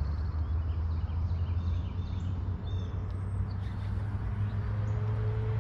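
Steady low hum of a bass boat's electric trolling motor, going slightly higher near the end, with birds chirping now and then.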